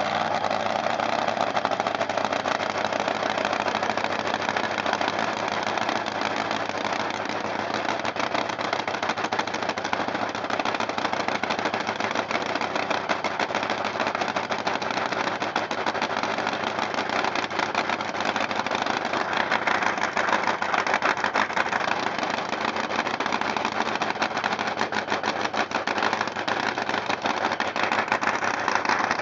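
Supercharged, nitromethane-burning V8 of a 1977 Top Fuel dragster, open-headered, running steadily at idle with a dense, rapid crackle of firing pulses, extremely loud.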